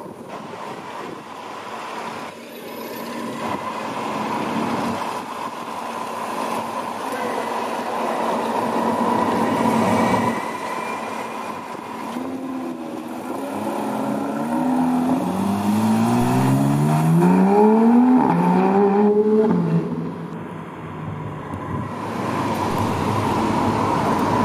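Porsche 911 GT3 flat-six accelerating hard, its pitch climbing again and again through several quick upshifts over about seven seconds, then falling away. Before that, a steady street and engine hum.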